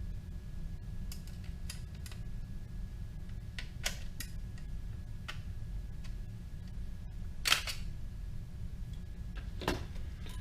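Scattered small metallic clicks of pliers working a taper pin in a clock movement, the loudest about seven and a half seconds in and another near the end.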